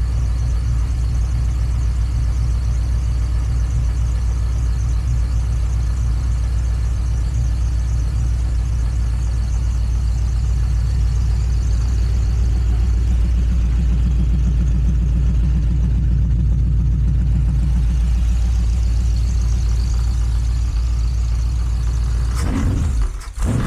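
GM LS V8 engine with Aces Jackpot throttle-body fuel injection idling steadily at about 900 rpm, warming up just after its first start of the day. Near the end the throttle linkage is worked by hand: the engine note breaks off briefly and comes back revving.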